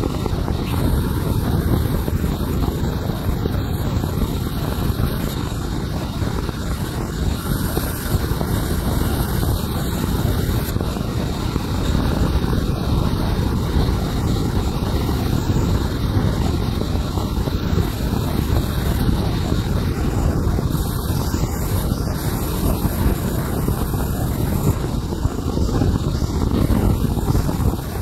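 Large band saw running steadily, its blade ripping a neem wood beam lengthwise, a low, even machine noise throughout.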